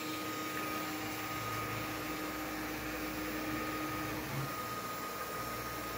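Small CNC milling machine for plastic boxes running, its motors giving a steady high whine over a low hum. A lower tone stops about four seconds in.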